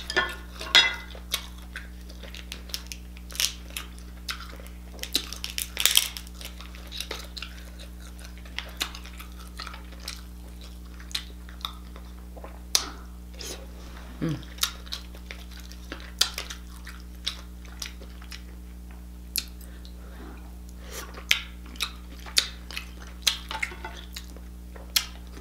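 Close-up eating of king crab legs: irregular sharp cracks and snaps of crab shell being broken and pulled apart by hand, with wet chewing and lip smacking and now and then a clink against a glass bowl.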